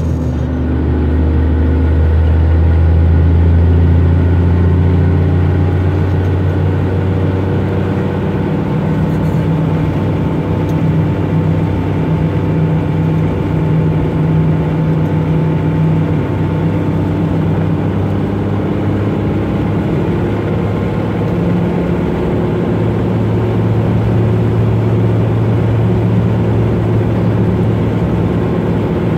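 12-valve Cummins 5.9-litre inline-six diesel running under load as the truck drives in gear after a shift, heard from inside the cab. It is loudest in the first few seconds, then settles to steady running, with its pitch shifting a little later on.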